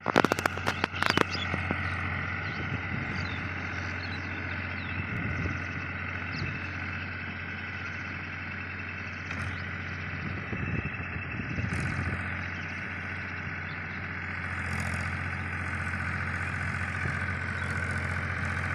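Powertrac 439 Plus diesel tractor engine running steadily under load while driving a rotavator through a field, heard from some distance. A burst of sharp clicks in the first second is the loudest sound.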